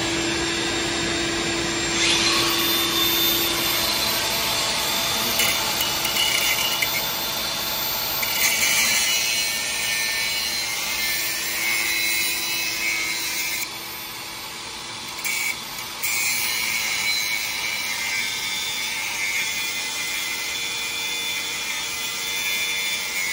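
Angle grinder with a thin cut-off disc cutting through the ends of steel wheel studs on a truck's rear hub, over the steady hum of a shop vac held at the cut to catch the sparks. The grinding starts about two seconds in, drops away for about two seconds a little past the middle, then runs on.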